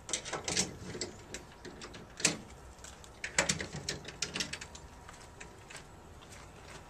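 Footsteps on asphalt: irregular sharp clicks and scuffs of shoes, a few a second, the loudest about two and three and a half seconds in.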